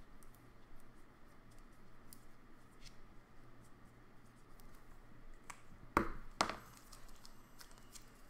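Faint scratching of a marker writing, with small ticks, then two sharp crackles of clear plastic being handled, about half a second apart, around six seconds in.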